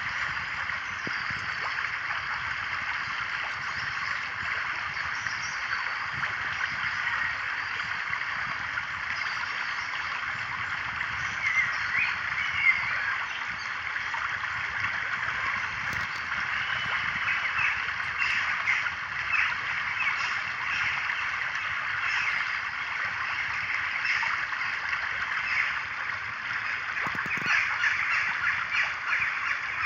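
A continuous outdoor chorus of birds calling, many short chirps and calls overlapping, with louder calls standing out now and then.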